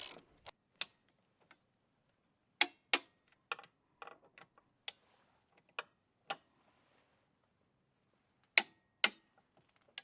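Socket ratchet clicking in short, irregular strokes as the long bolts holding a steel tip-over bar are run in and tightened. Two pairs of much louder clicks stand out, one about a quarter of the way in and one near the end.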